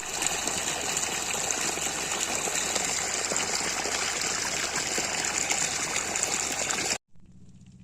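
Water gushing strongly, a loud, even rush that cuts off suddenly about seven seconds in, leaving a faint steady low hum.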